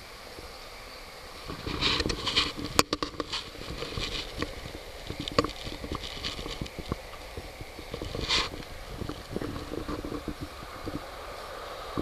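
Handling noise close to the microphone: irregular taps, clicks and rustles that start about a second and a half in, over a faint steady hiss. A sharp click comes near three seconds, and a short scraping rustle comes a little past eight seconds.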